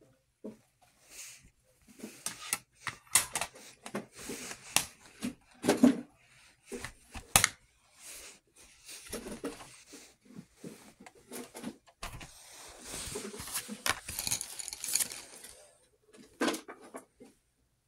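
Handling noise: irregular clicks and clacks of a metal colored-pencil tin, its lid and pencils being moved about, then a longer stretch of rustling from a fabric drawstring bag of pencils later on.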